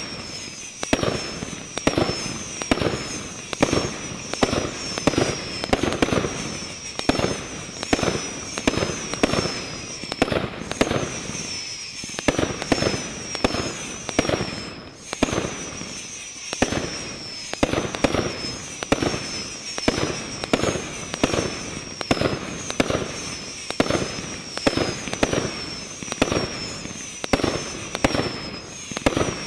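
A 48-shot 500 g consumer fireworks cake firing shot after shot: a steady run of sharp launch thumps and aerial burst reports, roughly one to two a second, with a brief lull about halfway.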